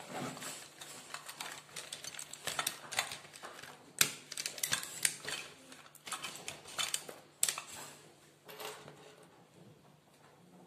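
Hands rummaging through a fabric pencil case: pens and small plastic items clicking and clattering against each other, with rustling of the fabric. Sharp clicks come in quick irregular clusters, the loudest about four seconds in and again near seven and a half seconds, then die away near the end.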